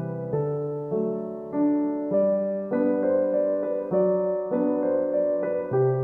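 Background piano music: a gentle melody with a new chord struck about every half second, each one fading before the next.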